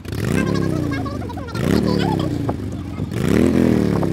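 A vehicle engine revved three times in quick succession, each rev climbing fast and then dying away more slowly, with voices over it.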